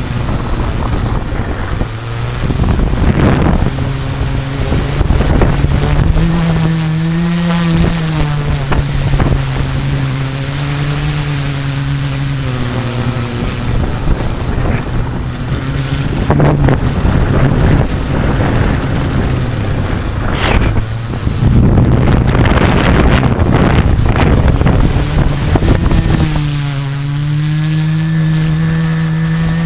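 A multirotor drone's brushless motors and 13-inch carbon propellers drone steadily, heard from the onboard camera. Their hum rises in pitch around a quarter of the way in and again near the end, as the throttle changes. Gusts of wind rush over the microphone at times.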